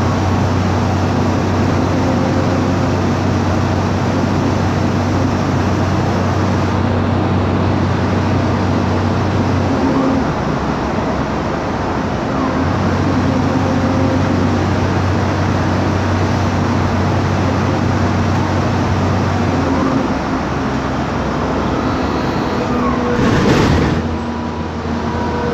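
Passenger-cabin sound of a 2009 MAN Lion's Classic city bus under way: its MAN E2876 LUH03 CNG engine and ZF Ecomat 6HP504C automatic gearbox give a steady drone that changes about ten seconds in and again near twenty seconds, as the load or gear changes. Near the end there is a brief burst of noise.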